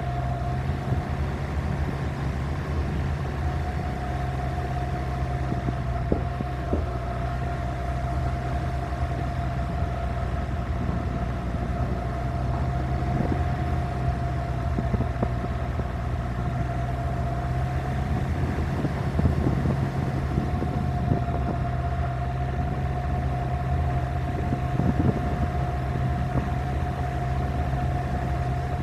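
Suzuki Grand Vitara SUV driving on a dirt road, its engine running steadily and tyres rolling, heard from outside on the roof, with scattered short knocks from the rough, potholed surface.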